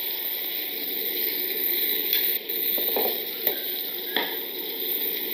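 Breaded chicken breasts sizzling steadily in butter in a cast-iron skillet, with a few sharp clicks of metal tongs and pans about two, three and a half and four seconds in.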